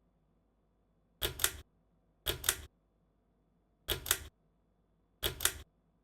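Four double clicks a second or so apart, each a quick pair of sharp snaps, typical of a ceiling fan's pull-chain switch being pulled and released to step through its settings.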